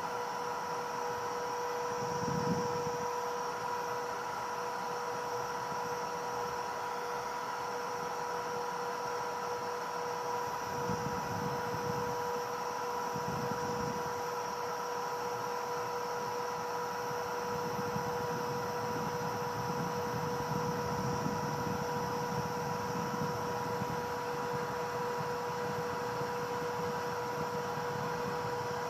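CNC router for cutting advertising materials running, its spindle giving a steady high whine over a hiss, with low rumbles coming and going.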